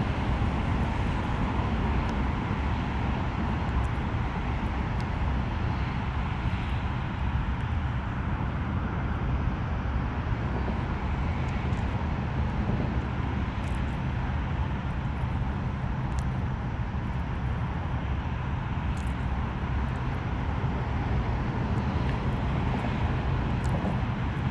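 Steady rumble of distant highway traffic, even throughout with no distinct events.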